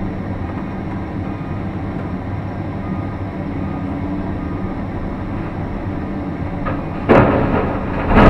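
Cat 349 excavator's diesel engine and hydraulics running steadily, heard from inside the cab as the loaded bucket swings. About seven seconds in, a loud rush as dirt and rock from the bucket start landing in the steel bed of a dump truck, with a second loud burst near the end.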